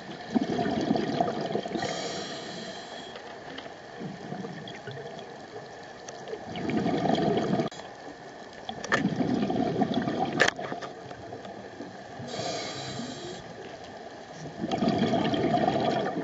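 Scuba diver breathing through a regulator underwater: a short hissing inhale, then a longer rush of bubbles at each exhale, four slow breaths spaced several seconds apart.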